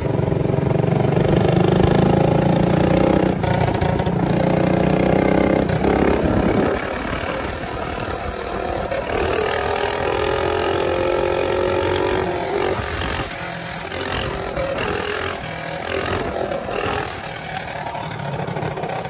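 Small single-cylinder motorbike engines running under way. The engine note weakens and changes about six and a half seconds in, then continues with its pitch rising and falling.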